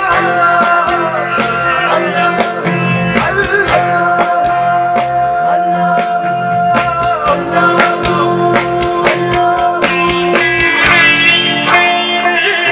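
A rock band playing live, with a lead line of long held, bending notes over steady drums and bass, and guitar prominent.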